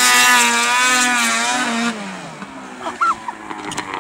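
Snowmobile engine revving high, its pitch wavering, then dropping away sharply about two seconds in.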